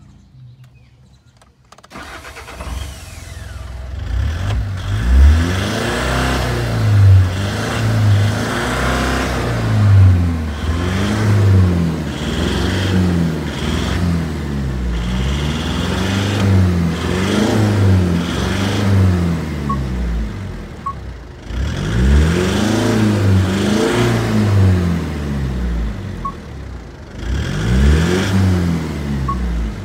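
Mitsubishi Fuso 4M50 four-cylinder turbo-diesel engine coming to life about two seconds in, then revved up and let back down over and over, roughly one rev every two seconds, with a brief drop back near the two-thirds mark.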